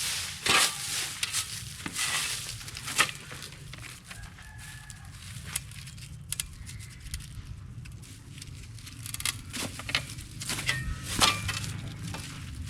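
Dry, dead cowpea stalks and leaves crackling and crunching as they are gathered up by hand, in irregular clusters that are loudest at the start and again about eleven seconds in.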